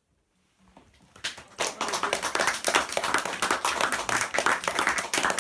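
A small audience clapping, starting about a second in after a brief hush and quickly building to steady applause.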